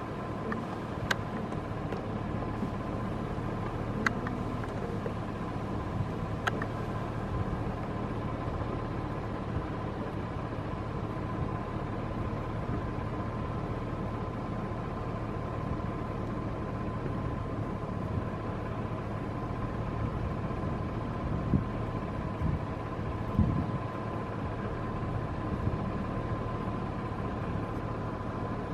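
A steady mechanical hum with a constant higher whine running through it, and a few faint clicks in the first several seconds.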